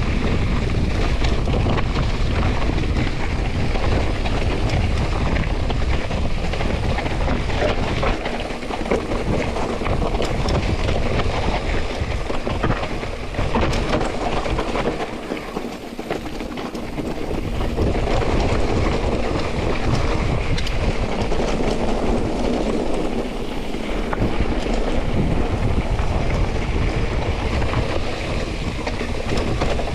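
Wind buffeting the microphone of a riding mountain bike, over the rush of tyres on a wet, muddy trail and the rattle of the hardtail frame and drivetrain over rough ground. The low rumble eases briefly about halfway through, then returns.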